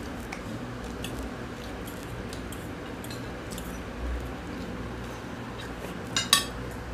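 Forks and spoons clicking and scraping against glass plates of noodles, with scattered light clinks and two sharper ones about six seconds in.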